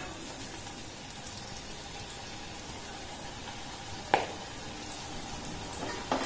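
Palak vada deep-frying in hot oil in an iron kadai: a steady, quiet sizzle and bubbling. A sharp knock comes about four seconds in, and two short ones near the end.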